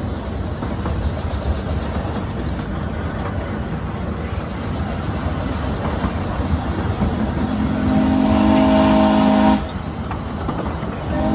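Ride-on scale steam train rolling along its track with a steady rumble, then the steam locomotive's chime whistle sounds a loud chord, one long blast of about two seconds starting around eight seconds in, and a second blast beginning right at the end.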